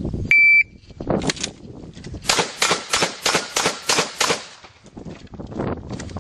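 A shot-timer beep, then a practical shotgun firing birdshot in a fast string of shots, about five a second at its quickest.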